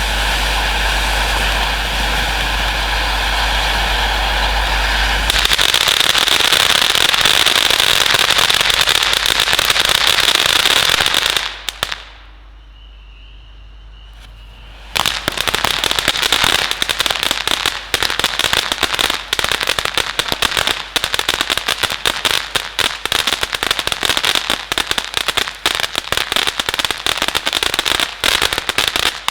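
A 500-gram Big Crackle fireworks fountain burning with a steady loud hiss that grows stronger about five seconds in. About halfway through it drops away for roughly three seconds, then comes back with dense crackling.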